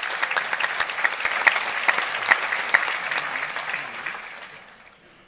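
Audience applauding: a dense patter of many hands clapping, which dies away about four to five seconds in.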